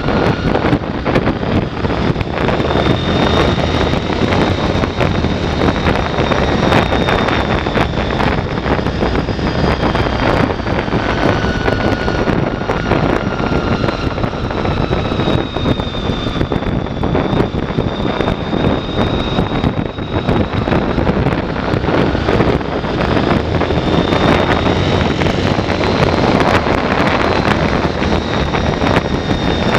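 Motorcycle riding at a steady cruise: wind rushing over the microphone mixed with the Honda VFR800's V4 engine running evenly, with a faint wavering high whine over the top.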